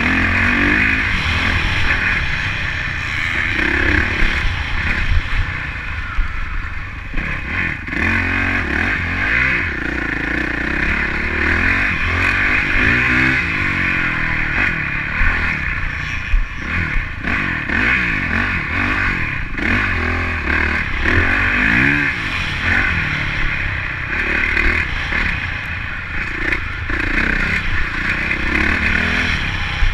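Honda CRF four-stroke motocross bike engine heard from an onboard camera, revving up and dropping back over and over as the rider accelerates and shifts along a dirt track, with rattling from the bike.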